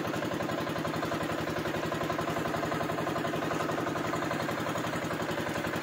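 Outrigger fishing boat's engine running steadily under way, with a rapid, even chugging pulse.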